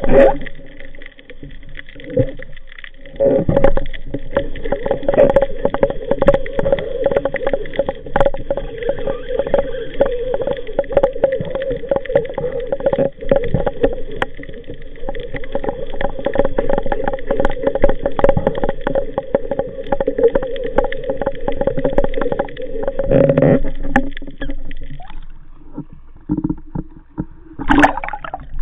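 Muffled underwater sound: a steady droning hum with dense crackling over it, which fades out about 25 seconds in. Near the end there is a short burst of bubbling and splashing as the diver surfaces.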